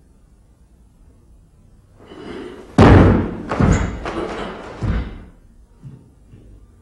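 A karateka's bare feet striking a wooden floor and his cotton gi snapping during kata techniques: a rising swish leads into a sharp thud about three seconds in, followed by a few softer thuds over the next two to three seconds.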